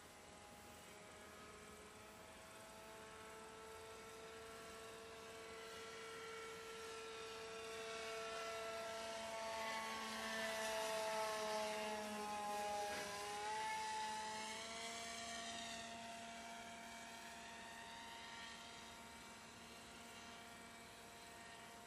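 Radio-controlled model plane's electric motor and propeller droning as it flies past, swelling to its loudest about halfway through, dropping slightly in pitch as it goes by, then fading.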